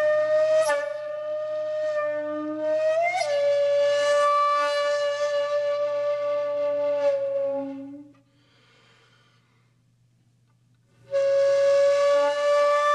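Background music on a solo wind instrument with a flute-like tone, playing long held notes with a short upward slide about three seconds in. It stops for about three seconds near the middle and then comes back on a held note.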